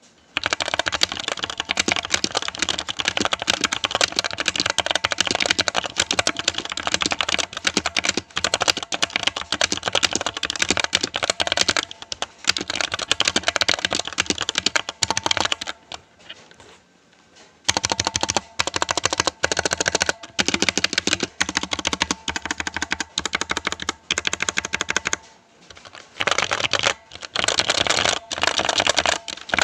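RAKK Pluma mechanical keyboard being typed on quickly and continuously, a dense stream of key clicks and clacks, with a short break about two-thirds of the way in and another near the end.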